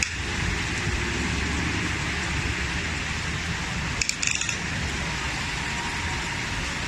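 Rainy street ambience: a steady hiss of rain with a low rumble of road traffic. There is a brief cluster of sharp clicks or a clatter about four seconds in.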